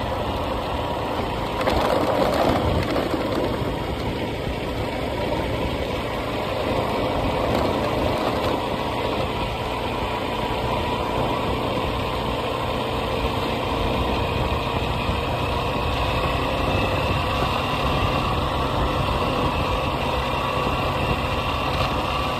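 A vehicle's engine running steadily while it drives along, heard from on board, with a low rumble and a faint engine tone that wavers slightly.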